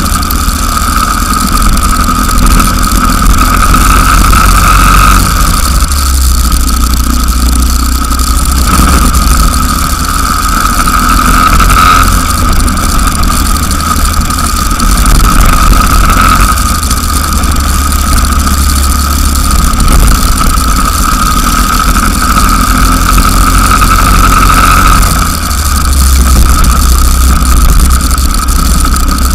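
Racing go-kart engine heard onboard at speed, a high steady note that swells and eases several times as the kart accelerates along straights and backs off for corners, over a deep rumble on the microphone.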